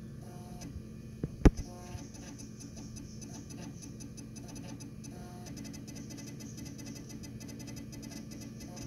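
Macintosh SE floppy drive reading a boot disk while the computer starts up: a sharp click a little over a second in, then fast, rhythmic ticking of the drive's head stepping from about five seconds on, over the machine's steady hum.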